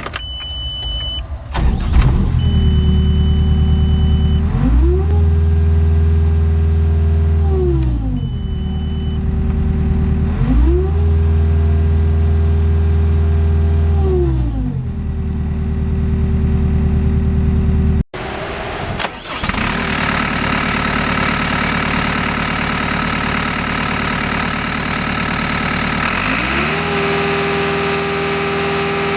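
Diesel engine of a 2012 Volvo MC110C skid steer loader starting after a short high beep, then idling and being revved up, held and let back down twice, with the beep sounding briefly again. After a cut it runs with more noise around it and revs up once more near the end.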